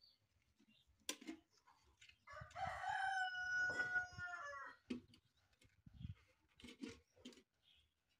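A rooster crows once, a single call of about two and a half seconds. Scattered light knocks and clicks of firewood sticks being handled are heard around it.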